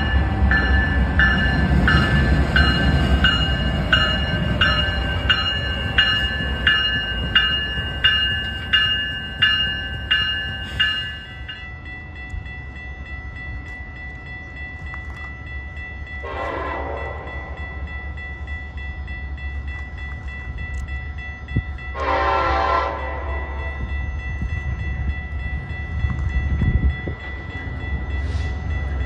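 Train rumbling close by, with a bell ringing steadily at about one and a half strikes a second until it stops about eleven seconds in. Two short train horn blasts follow, about six seconds apart.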